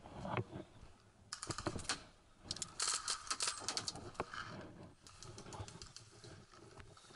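Paintball markers firing in rapid strings of sharp shots: a short burst, then a longer, louder one about two and a half seconds in, followed by scattered fainter shots.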